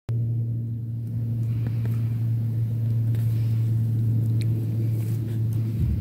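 Steady low mechanical hum of an engine or motor running, which cuts off suddenly near the end.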